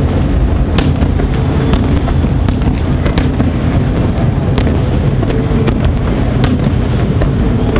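Fireworks going off in quick succession: a steady, heavy low noise of overlapping bursts with frequent sharp cracks and pops throughout.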